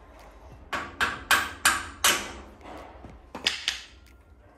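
Hand tools knocking on steel parts while a steering box is fitted to a chassis: five sharp knocks in quick succession, then two more about a second later.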